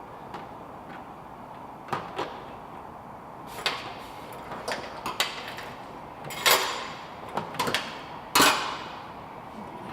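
Hand work on a truck's in-tank fuel pump and sending unit: a string of short clicks and knocks from tools and fittings being handled, the loudest two in the second half.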